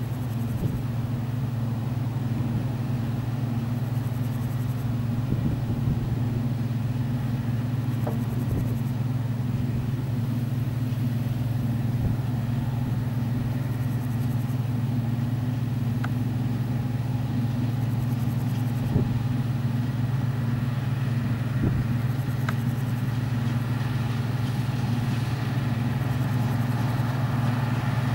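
Deutz-Fahr StarLiner 4045H combine harvester running under load while cutting and threshing grain: a steady low drone of engine and threshing machinery, growing slightly louder toward the end as it nears.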